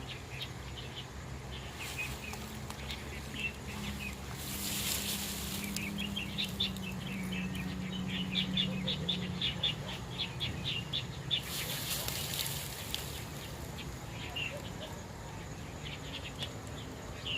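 Birds chirping in quick repeated calls over a low steady hum, with two rushing noises of a second or two, about four and eleven seconds in.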